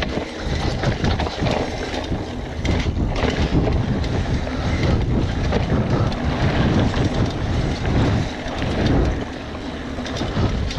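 Mountain bike riding over a rough dirt trail: wind buffeting the camera microphone, mixed with tyre rumble and short knocks and rattles from the bike.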